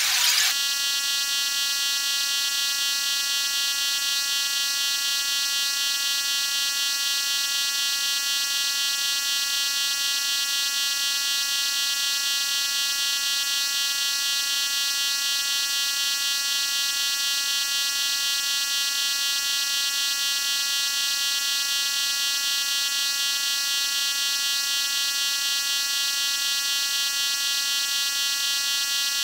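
A steady electronic buzzing tone with many overtones, unchanging in pitch and level, starting abruptly about half a second in.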